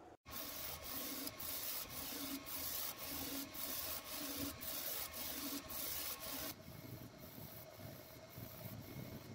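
A3 UV printer printing on bottles in a rotary fixture: a steady whir of motors and fans with a hiss that pulses about twice a second. The sound drops to a quieter hum about six and a half seconds in.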